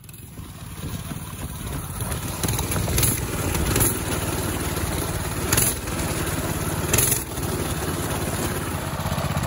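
Coleman minibike's small gas engine running as the bike is ridden, growing louder over the first second or two and then holding steady.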